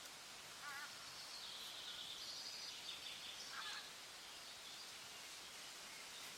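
Wild birds calling over a steady outdoor hiss: a short wavering call about half a second in, then higher calls and a few chirps over the next three seconds.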